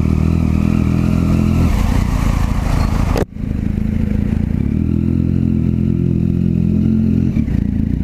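Motorcycle engine running loudly through a newly fitted aftermarket carbon exhaust while riding, with a steady rumble. The sound drops out abruptly for an instant about three seconds in, then carries on.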